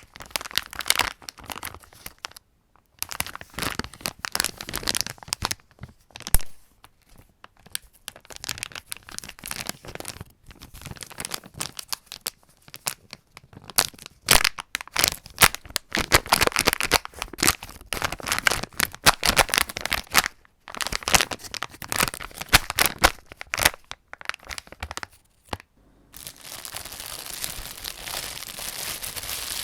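Plastic sweet bag packaging crinkling in repeated short bursts with brief pauses, as sweets are taken from a small resealable bag and then a sweet bag is pulled open with force. About 26 seconds in, a steadier continuous crinkle begins as a plastic bread bag is opened.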